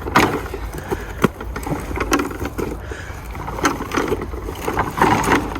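Kids' plastic ride-on tractor toy being ridden over rough ground, its wheels and body rattling and scraping with scattered sharp clicks.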